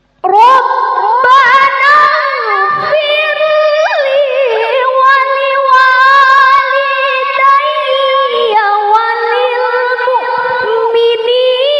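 A woman's high voice reciting the Quran in the melodic tilawah style through a handheld microphone: after a brief silence it enters just after the start and carries one long, ornamented phrase with held notes and quick pitch turns, without pausing for breath.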